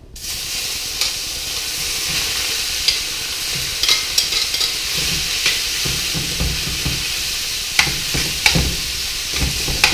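Marinated beef strips sizzling in a smoking-hot oiled pan, searing. The sizzle starts suddenly as the meat goes in and holds steady, with occasional sharp clicks and taps as the pieces are spread out.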